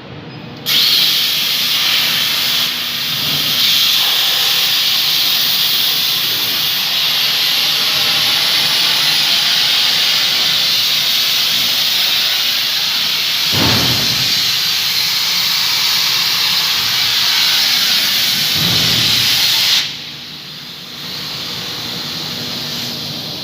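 Plasma arc from a Saba Electric model 122 water-cooled plasma cutter on a CNC table, cutting through 20 mm plate. It is a loud steady hiss that starts suddenly about a second in and cuts off sharply near the end, leaving a quieter steady noise.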